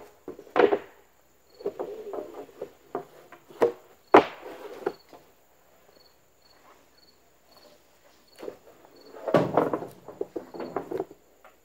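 Long 2x6 spruce tongue-and-groove boards being slid and set down on a stack of lumber: a few sharp wooden knocks, the loudest about four seconds in, and a longer clatter of wood sliding on wood near nine and a half seconds. A cricket chirps faintly underneath, about twice a second.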